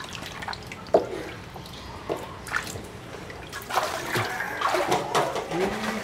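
Water splashing and dripping with scattered knocks as plastic buckets of water are handled and lifted out of a concrete fish tank; a sharp knock about a second in, and busier sloshing from about four seconds on.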